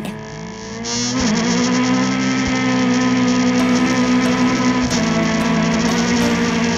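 Autocross car's engine revving hard as the car launches from a standing restart. It rises quickly in pitch, is held high at full throttle, then drops a step about five seconds in as it shifts up.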